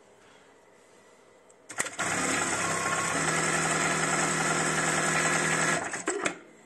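Kingtex KLD-8520M industrial straight lockstitch sewing machine sewing a decorative stitch at a steady speed for about four seconds. It starts with a click about two seconds in and stops with a few clicks.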